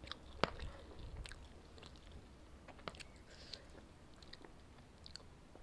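Close-miked mouth chewing instant noodles, with scattered soft wet clicks and smacks. The sharpest click comes about half a second in.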